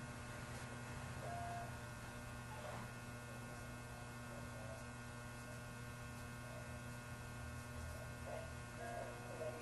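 Steady electrical hum from the onboard equipment of a JR 213 series electric multiple unit standing at the platform before departure, with a few faint short chirps about a second in and near the end.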